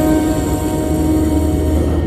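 A held music note fades out near the end, over the steady low rumble of metro train unit 6074 running through a tunnel.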